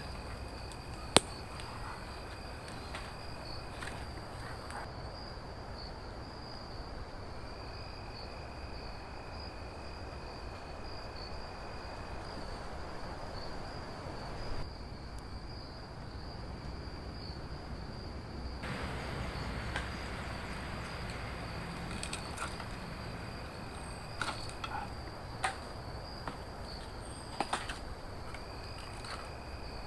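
Steady high-pitched trilling of insects, like crickets, over a low outdoor background, with a few sharp clicks and knocks scattered through it, the loudest about a second in.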